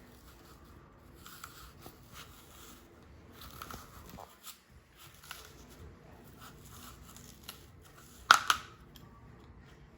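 A knife cutting and scraping the cores out of raw apples: faint, irregular crunching and scraping strokes, with one sharp knock about eight seconds in.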